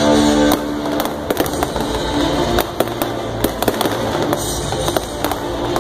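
Aerial fireworks bursting: a dense, irregular run of sharp bangs and crackles, several a second, starting about half a second in as the music that plays before them drops back.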